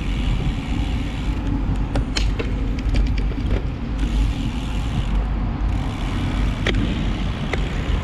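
Wind rumbling over the microphone of a camera mounted on a moving bicycle's handlebars, with a few sharp clicks and knocks.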